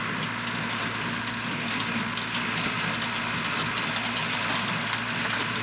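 Steady low hum of a tractor engine idling, under a steady hiss.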